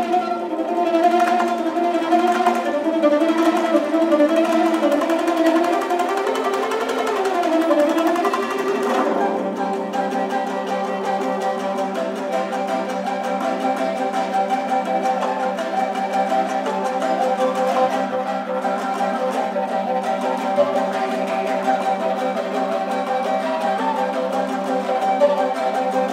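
Traditional Kazakh folk music from a small ensemble of plucked and bowed string instruments with an end-blown flute. For the first nine seconds a wavering melody rises and falls; then the music settles into steady held tones over a drone.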